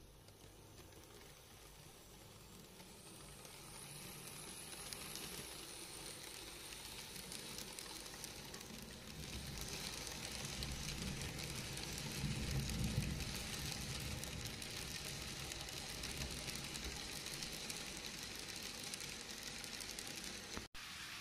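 N gauge model freight train, an EF65 electric locomotive hauling container wagons, running past on plastic track: a steady rattling hiss of small wheels on the rails with the low hum of the model's motor. It grows louder as the train approaches, is loudest a little past halfway as it passes closest, and cuts out for an instant near the end.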